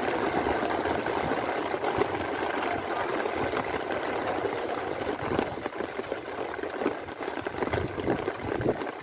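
Steady rain falling, a dense hiss of many small drop hits.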